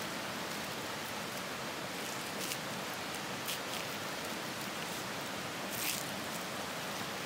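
Steady rush of stream water, with a few brief crinkles of a thin plastic wrapper being torn open around disposable wooden chopsticks.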